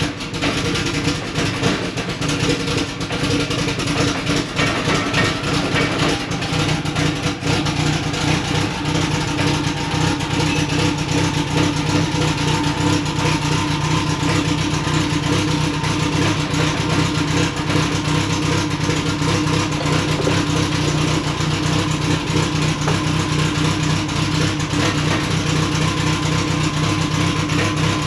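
Turbocharged Mitsubishi 4G63 inline-four engine running steadily with the car in drive and the driveline turning, a faint whine slowly rising in pitch. The run is a check for a bad noise from the rear differential after a hard launch.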